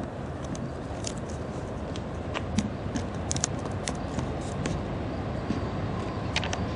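Train rolling past: a steady rumble with scattered sharp clicks and ticks.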